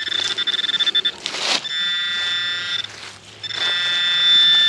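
Handheld metal-detecting pinpointer alarming on metal in the soil: a fast pulsing high beep for about a second, then a steady buzzing tone, a short break, and the steady tone again. A brief scrape of soil is heard between the tones.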